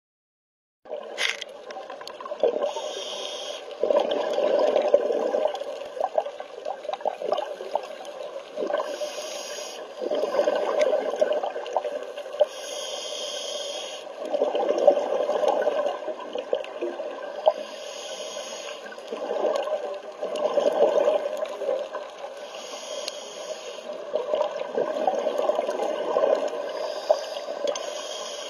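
A scuba diver breathing through a regulator underwater. Each breath is a short hiss on the inhale, then a longer rush of exhaled bubbles, repeating about every five seconds. It starts about a second in.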